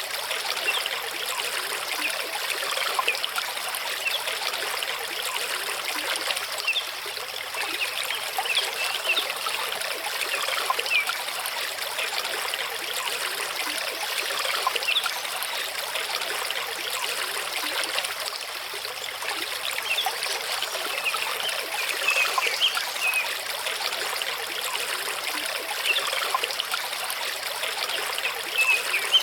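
Small mountain stream running over rocks: a steady trickling and burbling wash, with many quick bright plinks of water.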